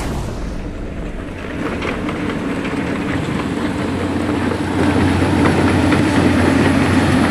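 Heavy diesel truck engine running under way, growing louder about two seconds in and again about five seconds in, with light rattling and clatter over a steady low hum.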